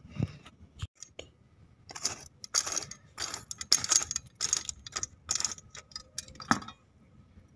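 Metal tongs scraping and clinking in the ash and coals of a clay chulha as the burning embers are raked out: a run of short, irregular scrapes and clicks, loudest about a second in past the middle and once more near the end.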